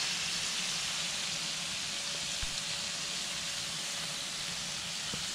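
Lobsters sizzling with a steady hiss on the hot ridged plate of a George Foreman electric grill as liquid from a bottle is poured over them.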